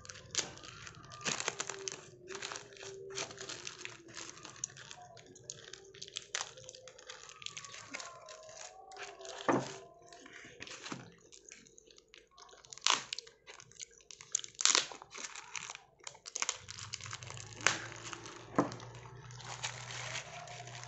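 Black plastic packaging wrap being slit with a kitchen knife, then handled, crinkled and torn open by hand, with irregular sharp crackles.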